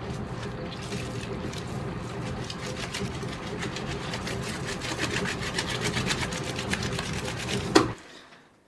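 A small machine running steadily with a low hum and a fast, rapid ticking clatter, stopping suddenly with a sharp click near the end.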